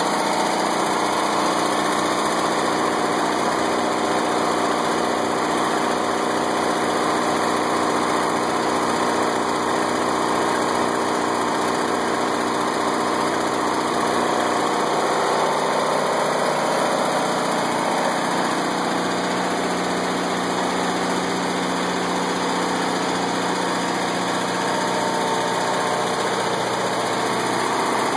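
Onan 12.5 kW generator's engine running steadily up close, loud and unbroken.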